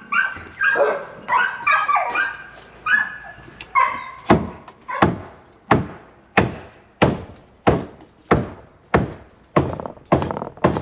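Quick repeated yelping cries of an animal for about the first four seconds, then a steady series of mallet blows hammering a 2x4 porch brace to knock it loose, about one and a half strikes a second.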